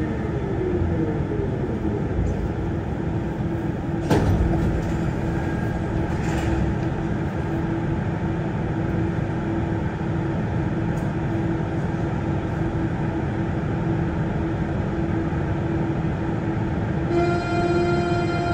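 Inside a Siemens VAL 208 rubber-tyred automatic metro car running between stations: a steady rumble with a constant motor hum, one sharp knock about four seconds in, and near the end a higher steady whine with many overtones joins in.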